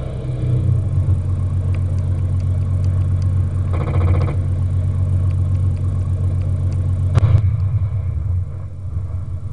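Benedini sound unit in a 1/6-scale King Tiger RC tank model playing a simulated tank engine idling with a steady low drone. A short fast rattle comes about four seconds in, and a single sharp bang just after seven seconds.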